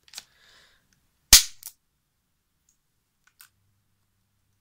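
One loud, sharp crack like a shot about a second in, followed by smaller clicks, as a microwave oven transformer is put on the mains. Past the halfway point a faint low hum sets in, the energised transformer.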